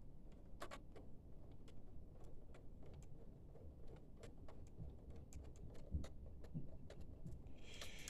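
Faint, irregular light clicks and ticks of hand work on a printer, as a screw on its top is worked with a screwdriver.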